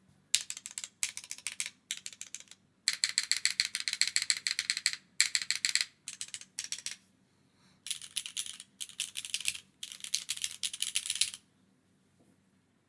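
Fast typing on a gasket-mounted custom mechanical keyboard with an aluminium plate, no foam, Cherry Hyperglide Black linear switches and GMK doubleshot ABS keycaps: quick runs of keystrokes in several bursts with short pauses between them, stopping about a second and a half before the end.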